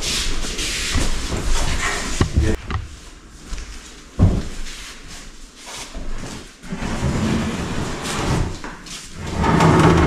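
Laminate countertop being handled and set down onto wooden kitchen base cabinets: scattered knocks and thumps of the slab against the cabinets, the sharpest about four seconds in, with shuffling and handling noise as it is worked into place.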